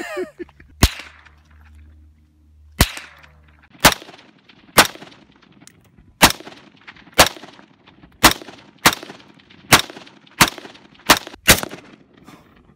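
About a dozen single gunshots fired one at a time, irregularly spaced about a second apart, each a sharp crack with a short echo. They come from a pistol and semi-automatic rifles, including an AR-15-style rifle and an AK-pattern rifle.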